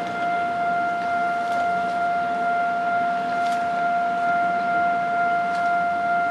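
Railway level-crossing warning alarm sounding one steady, unbroken high tone while the gates are down for a passing train.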